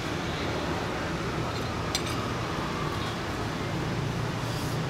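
A metal spoon clinks once against a plate about two seconds in, over a steady low background hum.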